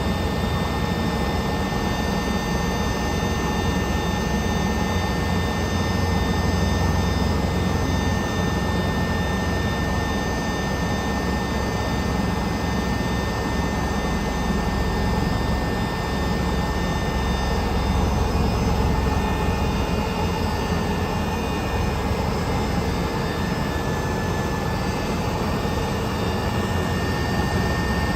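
Aircraft engine noise heard from aboard in flight: a steady, loud drone with several constant high whining tones over it.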